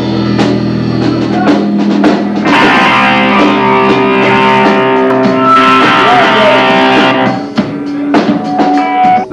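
Live rock band playing electric guitars and drums, loud and distorted through a VHS-C camcorder's built-in microphone. The playing drops in volume about seven seconds in, leaving a few guitar notes ringing.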